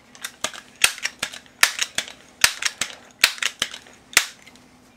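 Multi-pump pellet pistol being pumped up, one sharp clack with each of about five strokes, with lighter clicks between them.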